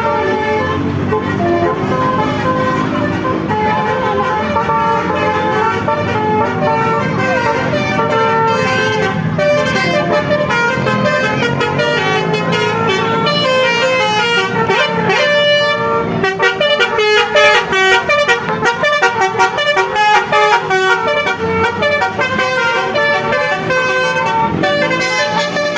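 Multi-tone 'telolet' bus horns (Basuri-type) playing melodies, the pitch stepping from note to note like a tune. About two-thirds of the way through, the notes turn into fast, choppy pulses.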